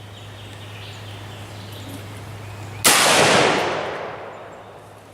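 A single shot from an M1A rifle in 7.62×51 mm about three seconds in, a sharp crack whose report rolls away over about a second and a half.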